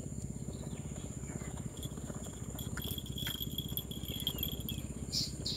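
Insects droning steadily at a high pitch, with a second shriller chirping layer joining partway through. A fast, even low pulsing runs underneath, and there are a few faint clicks.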